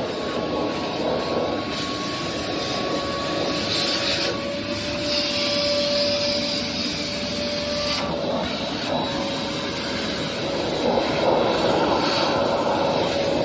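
Einhell TC-VC 1812 S 1250 W wet-and-dry vacuum cleaner running: a steady motor whine over rushing air, the air noise changing every few seconds.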